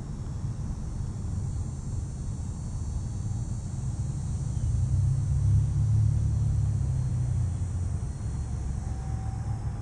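Low engine rumble of a passing vehicle, growing louder about four seconds in and fading after about seven and a half seconds.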